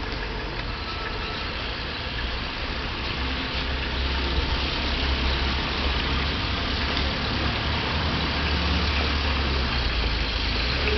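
Car engine running as a car comes slowly up a wet street, over a steady hiss; the low engine hum grows louder from about four seconds in.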